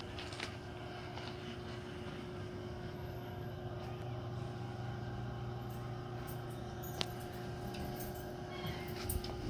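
Steady mechanical hum from a running rotisserie smoker's drive motor, holding one constant low tone, with a single sharp click about seven seconds in.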